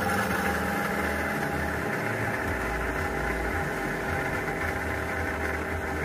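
Small motor in a Dreame L10s Ultra base station, modified to refill its fresh-water tank and pump out its dirty-water tank, running with a steady hum.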